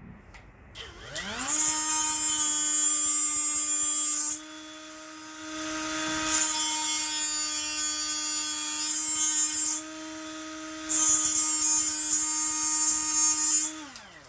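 Hyper Tough brushless die grinder spinning up with a rising whine and running at a steady high pitch. Three times it gives a long harsh grinding hiss as the tip of a TIG tungsten electrode is ground back to blunt its point, and the grinder winds down near the end.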